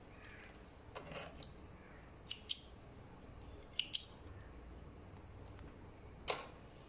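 Small scissors snipping thread: a few short sharp snips in two close pairs, then a single one near the end.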